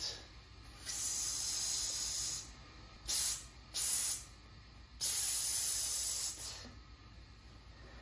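A person hissing "psst" and "shh" through the teeth to shoo a cat away. There is a long hiss about a second in, two short ones around three to four seconds, and another long hiss about five seconds in.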